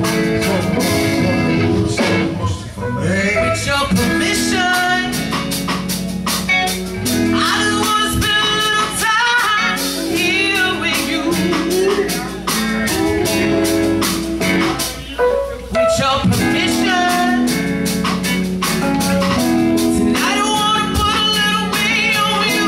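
A rock band playing live: singing over electric guitar and drums with a steady beat.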